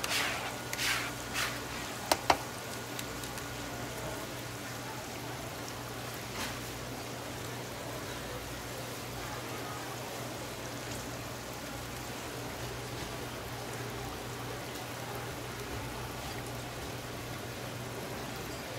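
Steady background hiss with a constant low hum. A few brief swishes come in the first second and a half, then two sharp knocks about two seconds in.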